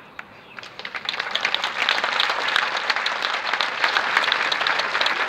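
Crowd applauding, starting with a few scattered claps and swelling within the first two seconds into steady applause.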